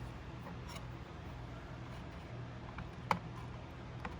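A few faint, irregular clicks and small knocks from objects being handled on a workbench, the sharpest about three seconds in, over a steady low hum.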